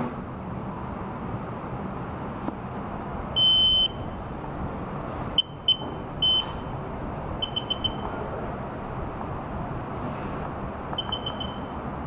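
High-pitched electronic beeps from a Sea-Doo RXP's instrument cluster as it powers up and reads out engine hours. There is one long beep, then single short beeps and two quick runs of about four beeps, over a steady background noise, with the engine not running.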